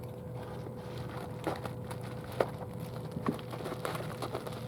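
Packaging being handled and opened by hand: sparse small clicks and crinkles over a faint steady hum.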